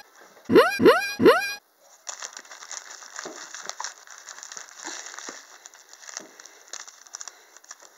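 Three short squeaky calls, each rising in pitch, then cellophane candy wrappers crinkling and crackling as they are handled for the rest of the time.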